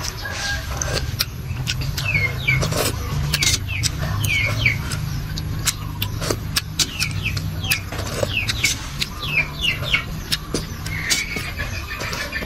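Eating sounds from a metal spoon in rice porridge: sharp clinks of the spoon against a metal tray and mouth sounds as spoonfuls are taken. Birds chirp short falling calls again and again, over a steady low hum.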